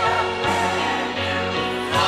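Church music: a choir singing a hymn, with wavering sung notes over steady, held low accompaniment notes.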